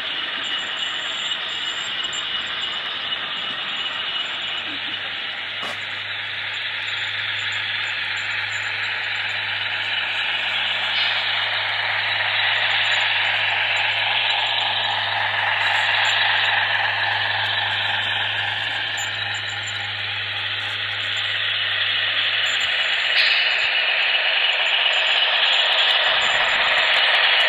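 HO-scale model Baldwin Centipede diesel locomotive and its freight cars running on the track: a steady mechanical running noise with a low hum through most of it, growing louder as the train comes close.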